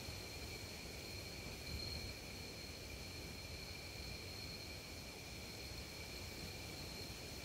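Steady, unbroken insect trilling at two high pitches, over a low rumble of wind.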